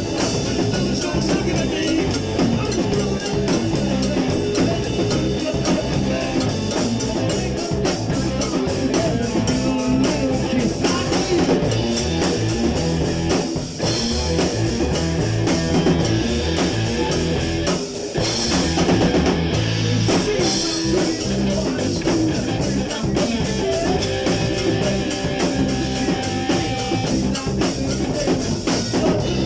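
Rock music with guitar and a drum kit playing a steady, driving passage.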